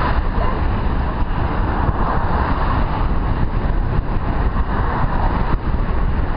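Steady wind rush over a helmet-mounted camera's microphone while cycling in a group of road bikes, a deep rumbling noise with no distinct tones.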